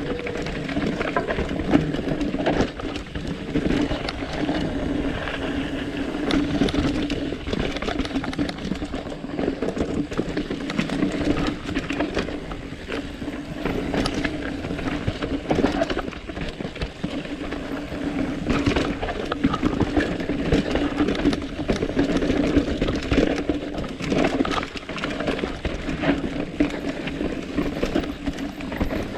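Mountain bike being ridden down a rough dirt trail: tyres on dirt and rock, with frequent knocks and rattles from the bike over a steady low hum.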